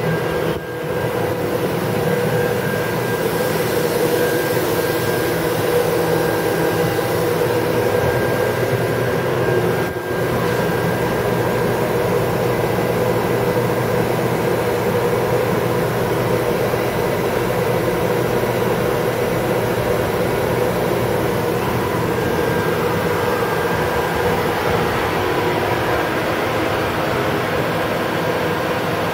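Fadal VMC 3016 vertical machining centre powered up, giving a steady whirring hum with several steady tones over it.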